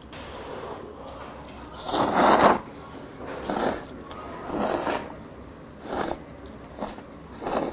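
Jjajangmyeon noodles in black bean sauce being slurped from a bowl. A longer, louder slurp comes about two seconds in, then shorter slurps about once a second.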